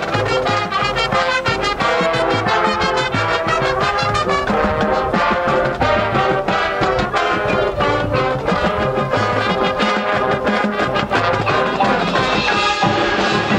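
Marching band playing a busy passage of short, accented brass chords.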